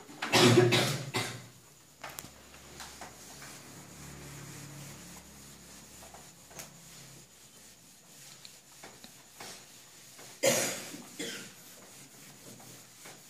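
Coughing in a small room: a burst at the start lasting about a second and another about ten and a half seconds in, with faint scattered ticks and rubbing between them.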